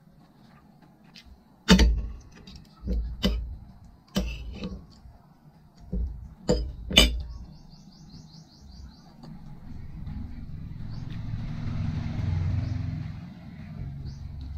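Metal spoon and fork clinking against a ceramic plate and a glass serving dish: about seven sharp clinks in the first seven seconds. These are followed by several seconds of softer, low handling and eating noise.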